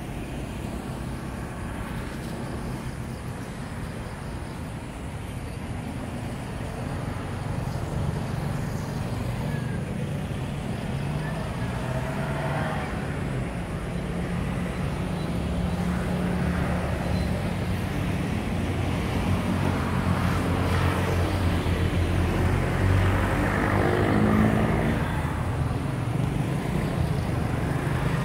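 Low, steady urban rumble with a motor engine drawing nearer, growing louder over some twenty seconds, then dropping in pitch as it passes near the end.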